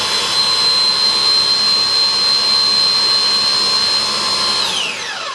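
Philips Avent SCF870 steamer-blender's motor running with a steady whine as it blends steamed fish and rice into purée, one of several short pulses, then spinning down with a falling pitch near the end.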